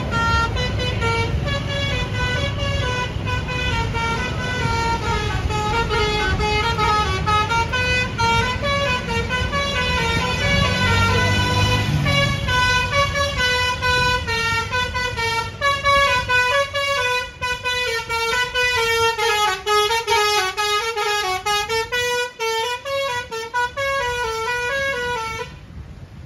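Basuri telolet bus horn, a multi-trumpet air horn, playing a long melody of quickly stepping notes. The notes turn short and choppy in the second half and the tune stops suddenly near the end. A low engine rumble runs underneath in the first half.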